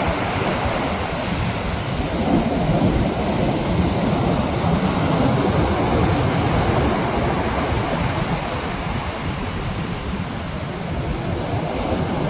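Sea waves breaking and washing in, a continuous rushing noise heavy in the low end, swelling and easing slightly but never stopping.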